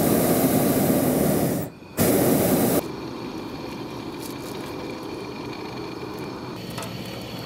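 Hot air balloon's propane burner firing in two blasts: a loud rushing hiss for just under two seconds, a brief break, then about another second that cuts off sharply. After that only a faint steady hiss remains.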